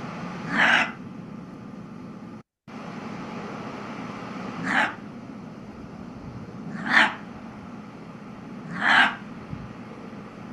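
Gray fox field recording: four short, harsh calls spaced a few seconds apart over steady background hiss.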